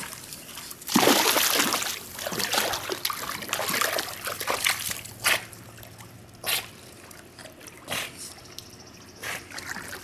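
Pool water splashing and sloshing as a Boston terrier swims through it. A burst of splashing comes about a second in, followed by a few brief splashes.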